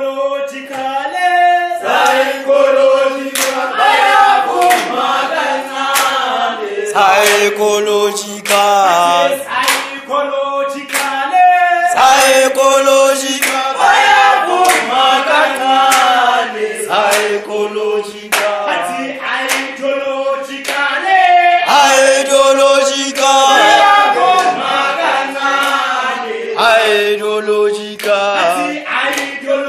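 A group of men and women singing a South African struggle song together in several voice parts, with regular sharp beats keeping time.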